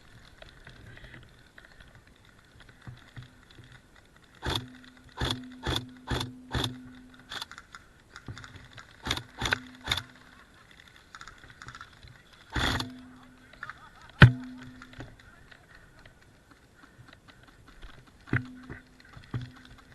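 Airsoft guns firing single shots in irregular strings, each sharp crack followed by a brief hum, with one louder, sharper crack about fourteen seconds in.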